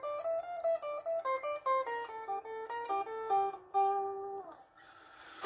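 Unplugged electric guitar played as a run of single picked notes, a quick melody that stops about four and a half seconds in.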